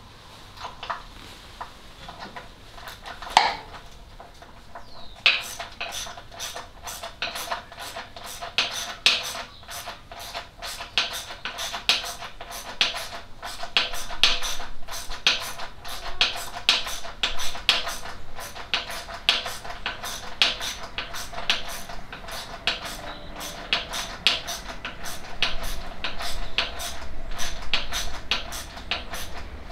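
Hand spanner working a nut, metal clicking about two to three times a second as it is turned, after one sharper clank a few seconds before the clicking starts.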